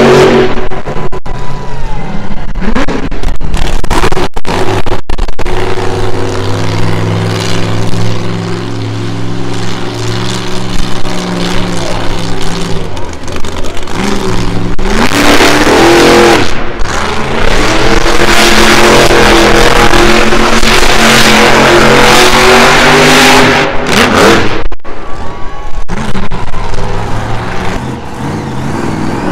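Monster truck engine running very loud, repeatedly revving up and easing off, with a steadier, lower-pitched stretch about a third of the way in before it climbs to high revs again.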